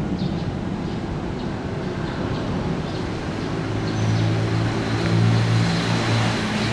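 Traffic noise: a low rumble with a vehicle engine's hum that swells about four seconds in and eases near the end.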